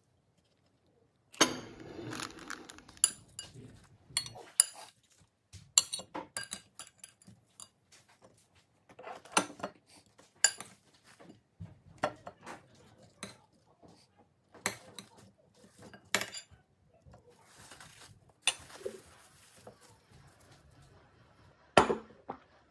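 Metal spoon and food clinking and knocking on a ceramic dinner plate as watermelon wedges and wrap halves are set onto it: an irregular series of sharp clinks, with the loudest knocks about a second and a half in and near the end.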